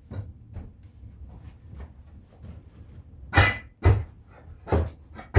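Knocks and thumps of objects being handled and moved: light clicks and taps, then four sharper knocks in the second half.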